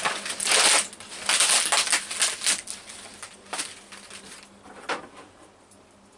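Brittle old plastic lampshade material being cracked and torn away from its metal rings: bursts of crunching and crackling, heaviest in the first two and a half seconds, then a few scattered cracks.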